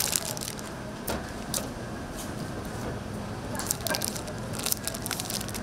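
Paper sandwich wrapper crinkling and rustling as it is folded and pressed around a sandwich by gloved hands, in scattered crackles over a steady low hum.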